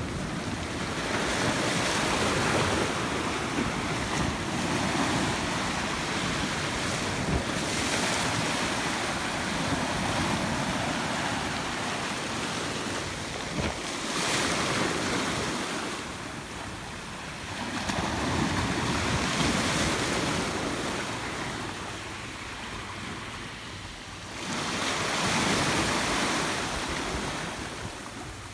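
Sea waves breaking and washing on the shore, the rush of surf swelling and ebbing in slow surges every several seconds, with some wind on the microphone.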